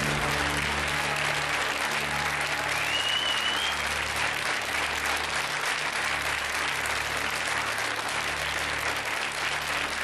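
Studio audience applauding steadily over the show's low, pulsing music, in applause for a correct answer. A brief rising whistle sounds about three seconds in.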